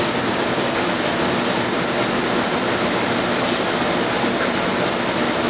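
Steady, even hiss of background room noise with no distinct events.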